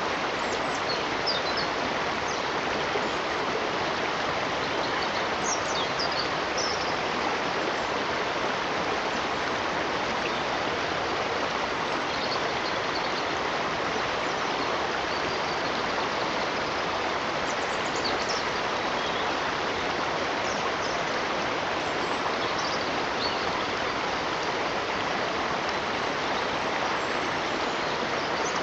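Flowing stream water rushing steadily, with a few brief high chirps scattered over it.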